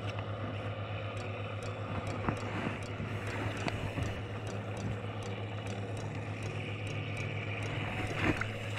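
Tractor engine running steadily with a low hum and a light ticking about three times a second, with a few splashes of wading in shallow muddy water.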